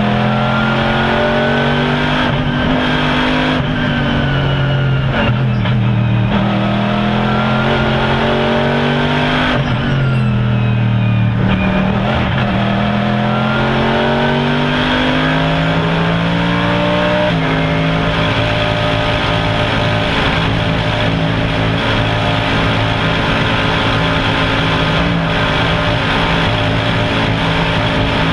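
Mercedes-Benz SLS AMG GT3's 6.2-litre V8 racing engine heard from inside the cockpit at racing speed: its pitch climbs in each gear and falls back at each shift, several times, then holds nearly steady through the last ten seconds.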